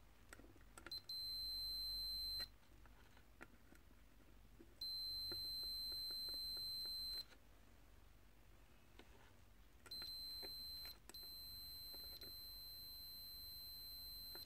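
Hioki 3244 multimeter's continuity buzzer beeping, a steady high-pitched tone, four times for one to three and a half seconds each, the last running on longest. It sounds while the test probes are held across a low-resistance, unbroken path, with faint clicks of the probes touching between beeps.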